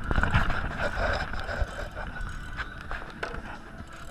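Large spinning reel being cranked while a fish is reeled in, a steady mechanical whirr that is loudest in the first second or so, with a couple of sharp clicks later.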